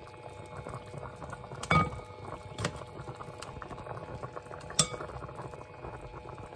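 Chicken curry bubbling steadily at a boil in a pot, with a few sharp, briefly ringing clinks of tongs against the pot and glass bowl as chicken pieces are lifted out. The loudest clinks come nearly two seconds in and about five seconds in.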